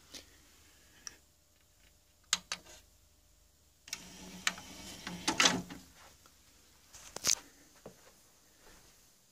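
Scattered small clicks and knocks, with a denser few seconds of handling noise about four to six seconds in and a sharp click about seven seconds in.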